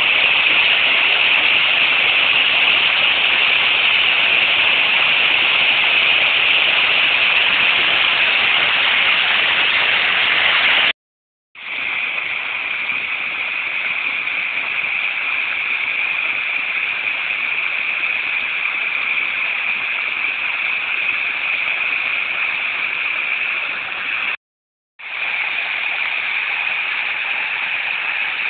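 Small woodland stream rushing over rocks and little cascades: a steady, loud hiss of running water. It is louder in the first part. The sound cuts out completely twice for about half a second, once about eleven seconds in and again about twenty-four seconds in.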